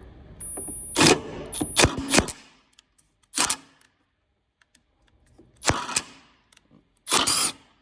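Impact driver on a long extension hammering in several short bursts, loosening the top mounting bolts of a Toyota Prius inverter water pump.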